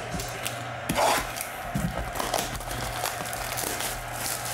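Clear plastic shrink wrap being torn and crumpled off a sealed trading-card hobby box, a run of irregular crinkling crackles and scratchy rubbing starting about a second in.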